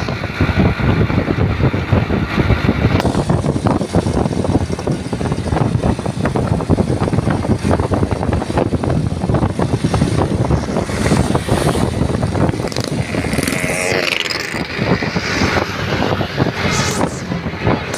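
Bus engine running close by: a heavy, steady low rumble with vehicle noise. A few brief high sliding sounds come in during the last several seconds.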